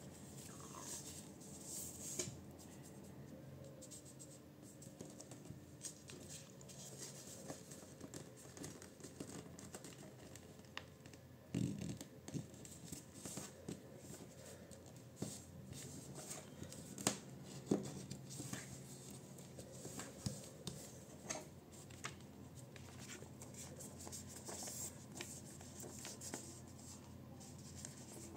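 A sheet of A4 printer paper being folded and creased by hand into a paper airplane: crisp rustling and crinkling as the sheet is handled, fingers scraping along the folds, and small taps against the table, a few sharper ones about midway.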